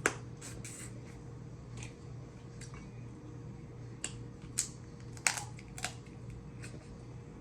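Snow crab leg shells being cracked and snapped apart while eating: sharp cracks and clicks at irregular intervals, the loudest a little past the middle, over a steady low hum.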